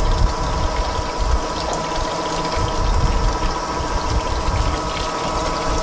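Fishing boat's engine running steadily, with a constant hum and the wash of water around the hull.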